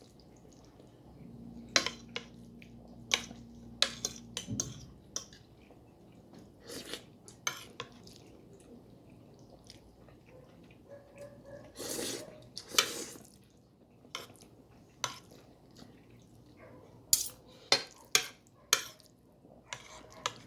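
Spoon and fork clinking and scraping against a plate while eating, in scattered sharp clicks with short pauses between them.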